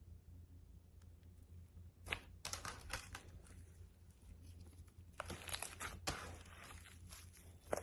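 Slime being worked by hand: two spells of dense, crackly popping and sticky tearing, the first about two seconds in and a longer one from about five seconds in.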